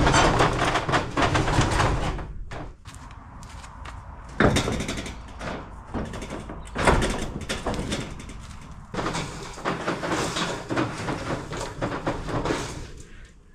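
Corrugated steel roller door being lifted and pushed by hand, its curtain rattling and clanking in its tracks, with sharp knocks about four and a half and seven seconds in.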